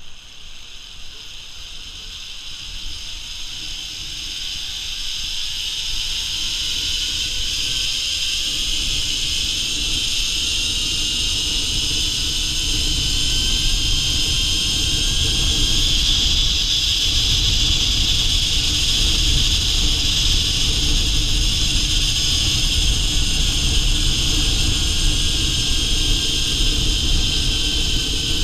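Zip-line trolley pulleys running along the steel cable: a whirring whine that rises in pitch and grows louder over the first dozen seconds as the rider picks up speed, then holds steady, over a low rushing noise.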